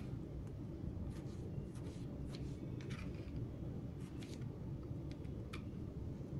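Knife slicing tomatoes on a wooden cutting board: soft, irregular cutting strokes, about two a second, over a steady low background hum.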